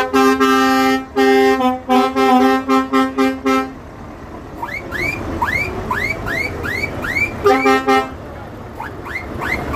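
Lorry air horns sounding a chord in a quick series of short toots. Then comes a run of about eight rising whooping tones, one more short horn blast and a few more whoops near the end.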